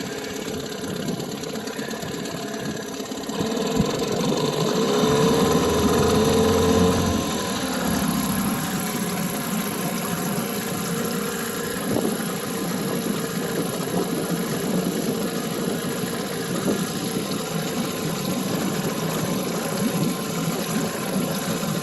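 Johnson 9.9 hp outboard motor running at a fast idle while warming up, revved up briefly about four seconds in and then settling back. The idle is a little high, which the owner puts down to a control he had turned.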